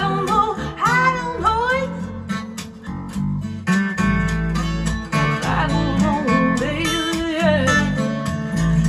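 A recorded pop song playing through a pair of PX4-driven 212 tube amplifiers: a guitar-led instrumental passage between sung verses, with a few bending melodic lines over a steady bass.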